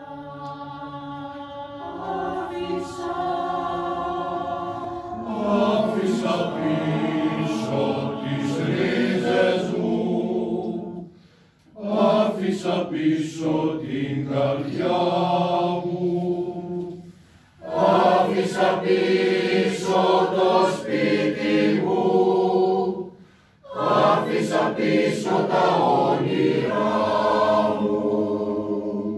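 Mixed choir of women's and men's voices singing a cappella, starting softly and swelling over the first few seconds. It sings in long phrases with three short breaks between them.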